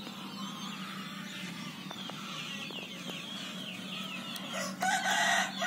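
Flock of young, four-week-old KUB village chickens peeping and clucking: many short, high, falling chirps one after another, with a louder burst near the end.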